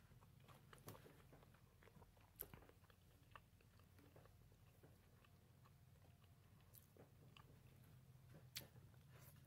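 Faint close-up chewing of food by a person, with scattered soft mouth clicks and smacks every second or so over a low steady hum.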